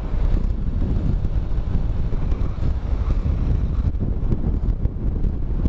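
Wind buffeting the microphone of a motorcycle-mounted camera while riding at city speed, a low gusting rumble. The Honda NC750X's parallel-twin engine and the tyres run underneath it.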